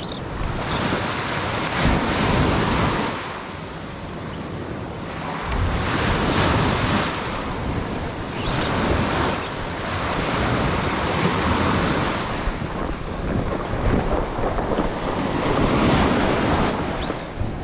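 Small surf waves breaking and washing up on a sandy beach, swelling and easing every few seconds, with wind buffeting the microphone.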